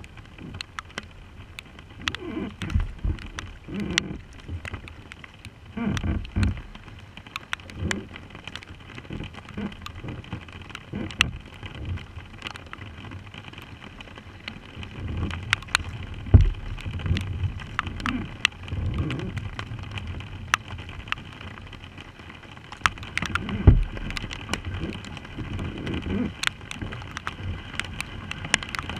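Rain falling steadily on the lake and the kayak, with many sharp ticks of drops striking close to the camera and irregular low thumps and rushes throughout.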